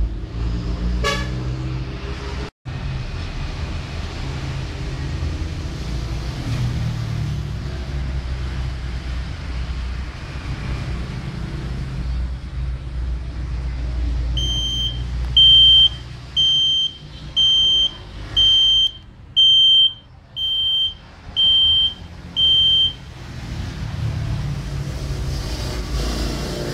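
Alarm buzzer of a homemade AT89S51 microcontroller alarm clock beeping about nine times, short high single-pitched beeps a little under a second apart, starting about halfway through as the clock reaches the alarm time. Under it runs a steady low rumble of background noise.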